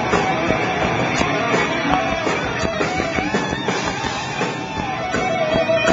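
Live hard rock band playing loud, led by electric guitar that holds and bends notes over drums and bass. It is heard through a small camcorder's microphone.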